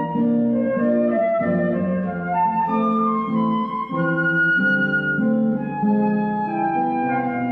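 Instrumental music with a flute playing a moving melody over lower accompanying notes.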